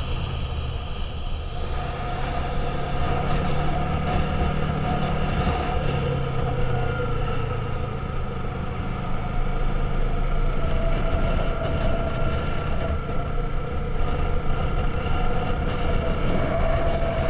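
Motorcycle engine running steadily at cruising speed, a constant pitched drone, with wind and road rumble on the microphone.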